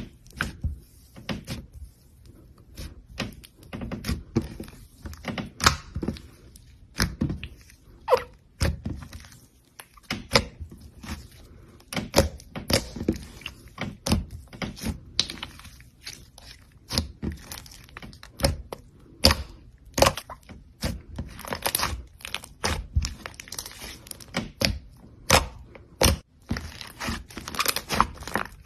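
Slime being worked by hand: irregular sharp pops and clicks, several a second, with squishing and faint crackling in between.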